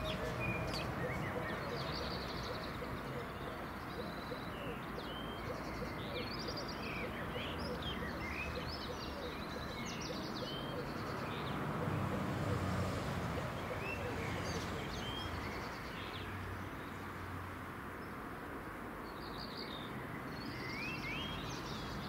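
Small birds chirping and singing in short, scattered calls over a steady low background hum.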